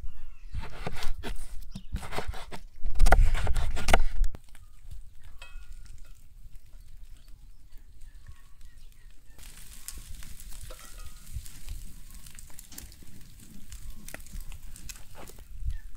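A chef's knife chopping tomatoes on a wooden cutting board: a quick run of loud chops on the board that stops about four seconds in. After that, chicken doner meat sizzles quietly beside hot charcoal, a soft hiss and crackle that grows brighter about halfway through, with a few faint farmyard bird calls.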